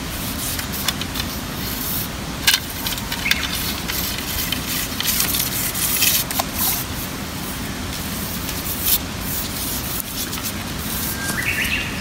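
Steady rushing water noise with scattered light clicks and taps through it, and a short bird call near the end.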